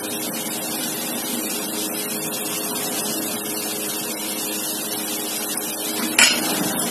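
Onion and ground moong dal stuffing frying in a pan over low heat, with a steady hiss and a faint hum under it. A short knock about six seconds in.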